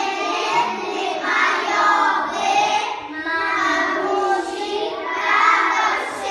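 A group of young children singing together in unison, their voices held and bending steadily with few pauses.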